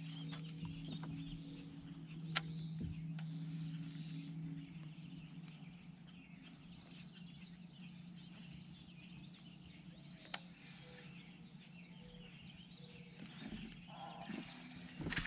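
Quiet open-air ambience with faint bird chirps over a steady low hum that fades about five seconds in, and a couple of single clicks.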